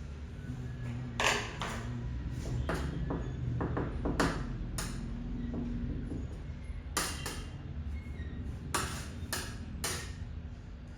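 Utensils knocking and clinking against kitchenware: about a dozen sharp taps at uneven intervals, some in quick pairs, over a low steady hum.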